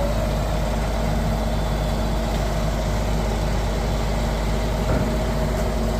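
Diesel engine of a concrete pump truck idling steadily with a low, even hum.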